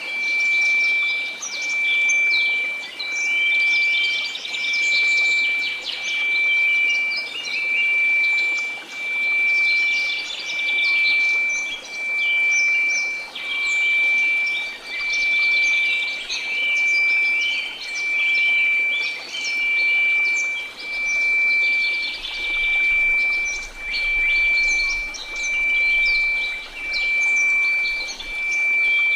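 A steady synthesized tone at 2334 Hz swelling and fading about every two seconds over a faint white-noise hiss, with birds chirping throughout.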